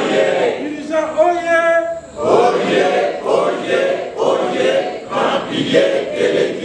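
Church choir singing. The voices hold long notes for the first two seconds, then from about two seconds in they sing short, rhythmic phrases.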